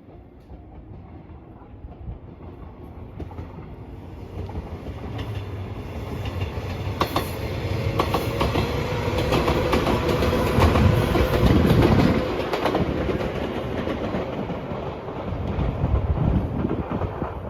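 Passenger train passing over a level crossing. It grows louder to a peak about ten to twelve seconds in, with the clickety-clack of wheels over the rail joints.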